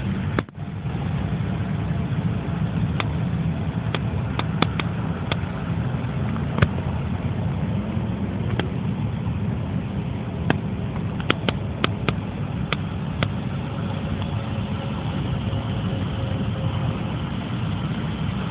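Steady low engine rumble, like engines idling, with a brief drop about half a second in and a few faint clicks scattered through it.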